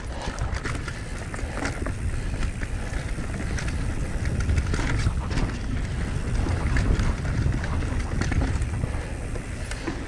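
Mountain bike riding down a dirt trail: wind buffeting the camera microphone over tyre noise, with scattered clicks and rattles from the bike.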